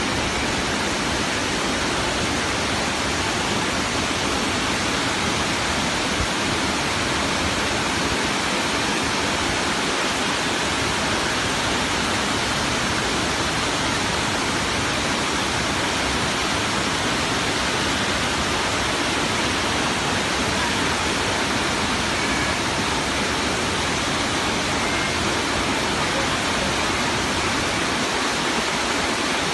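Waterfall: falling water making a steady, unbroken rush that spreads evenly from low to high pitch.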